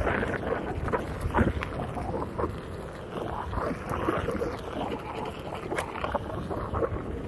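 Onewheel rolling over a bumpy dirt trail: steady tyre rumble with scattered clicks and pops from small stones and bumps, and wind buffeting the microphone.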